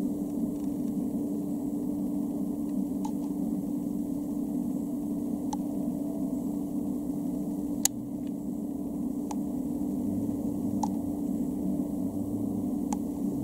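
Steady noisy hum with a strong low band, broken by a handful of sharp clicks spaced a second or two apart, the loudest about eight seconds in.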